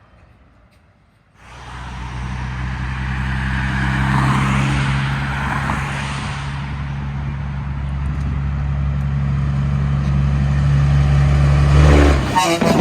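Heavy truck's diesel engine running with a deep steady drone. It cuts in suddenly about a second and a half in, swells louder twice and breaks off abruptly near the end.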